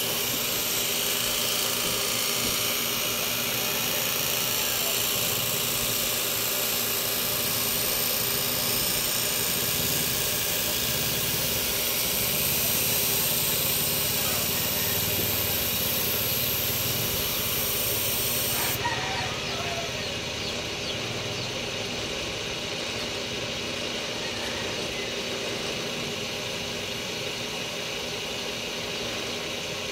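A small power tool's motor running steadily with a constant hiss. About two-thirds of the way through, the highest part of the hiss cuts off suddenly and the sound goes slightly duller and quieter.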